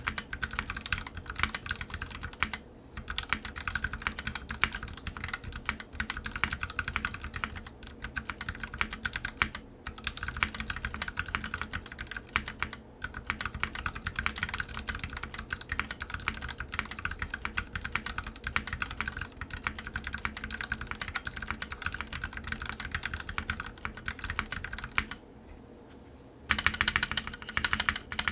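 Typing on a custom mechanical keyboard with lubed Gateron Black Ink linear switches on a brass plate and EPBT keycaps: a fast, steady stream of keystrokes with a few brief gaps and a pause of about a second and a half near the end.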